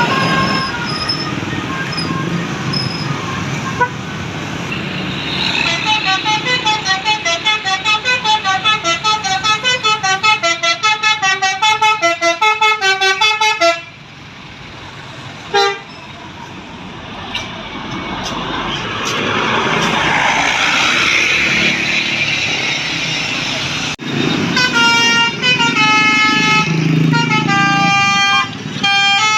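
Bus 'telolet basuri' musical air horns playing quick tunes of short, stepped notes. One long run of notes comes in the middle and another near the end, over traffic noise and voices.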